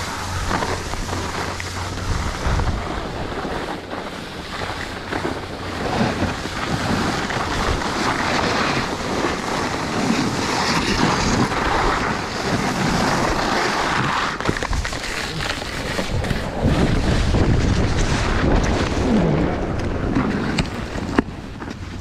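Skis sliding and scraping over packed snow, with wind buffeting the microphone. The noise swells and fades from turn to turn, and there is one sharp click near the end.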